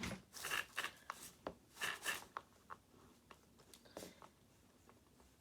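Light clicks, taps and rustling from hands handling small plastic RC car parts, busiest in the first three seconds and then quieter.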